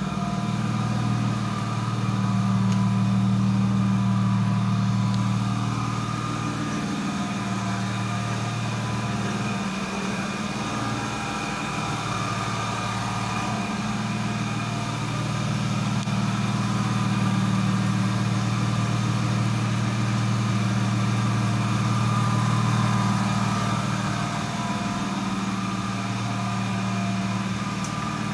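BMW E36 323i's M52 2.5-litre 24-valve straight-six idling steadily while warming up, a low hum that swells slightly in loudness now and then.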